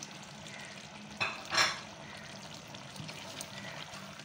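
Chicken karahi simmering and sizzling gently in the karahi pan under its topping of tomatoes and chillies, over a low steady hum. Two short, louder hisses come about a second and a half in.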